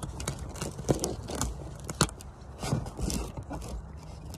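Rope scraping and rustling as hands work and pull tight the wraps of 5/16-inch line around a crab float, with irregular sharp clicks, the loudest about one and two seconds in, over a low steady rumble.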